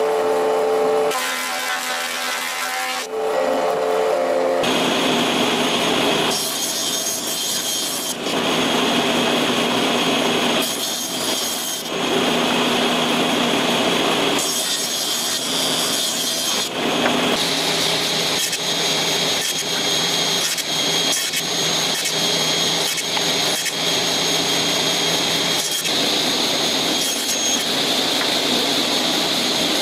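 A thickness planer runs with a steady whine for about the first four seconds. Then a circular table saw runs and cuts boards, and its sound changes abruptly several times.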